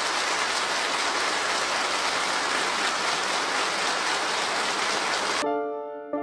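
Studio audience applauding steadily; it cuts off suddenly about five seconds in and a few keyboard notes begin.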